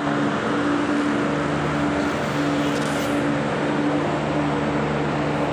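Ice resurfacing machine running as it drives slowly over the rink, a steady hum with a low tone.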